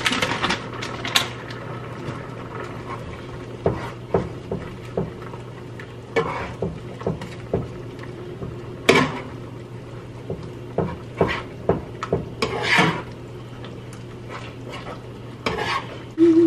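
A utensil stirring and scraping in a pan of Alfredo sauce as Parmesan is stirred in to thicken it, with irregular clinks and scrapes against the pan. A steady low hum runs underneath.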